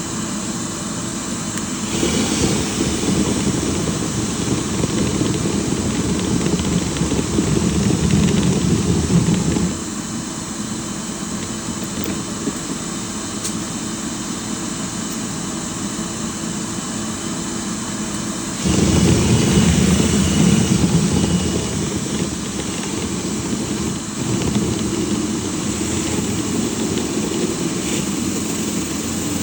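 Dryer vent cleaning equipment running steadily. The noise grows louder twice: from about two seconds in to about ten, and again from about nineteen to twenty-four seconds.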